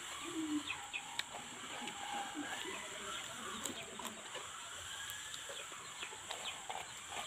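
Chickens clucking, with a few sharp crunches from chewing banana chips.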